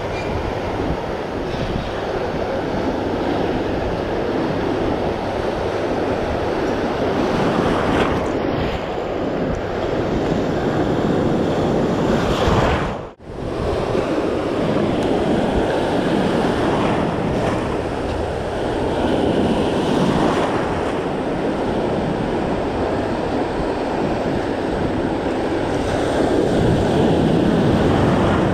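Ocean surf breaking and rushing, with wind buffeting the microphone. The sound cuts out for an instant about halfway through.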